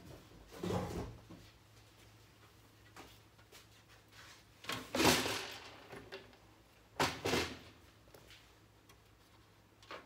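Side panel of a computer case being slid onto the chassis and handled: scraping and clunking of the panel against the case, in three bouts, about a second in, the loudest around five seconds in, and a double clunk at seven seconds.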